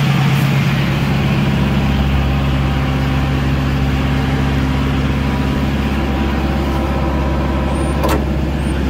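Ford F-550's 6.7-litre Power Stroke V8 turbo diesel running steadily, with the PTO engaged to drive the bucket's hydraulics. A single sharp click about eight seconds in.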